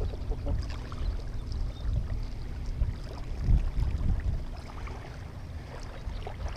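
Wind buffeting the microphone: a steady low rumble that swells briefly about three and a half seconds in.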